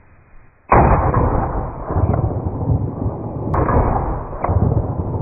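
Glock 22 .40 S&W pistol fired twice, about three seconds apart, with a smaller sharp report about a second after the second shot. A loud, rumbling noise carries on between and after the shots.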